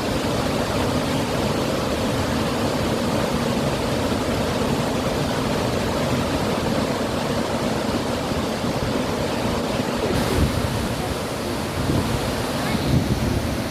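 Bow Falls on the Bow River: a steady, even rush of water pouring over the falls, with a few low thumps near the end.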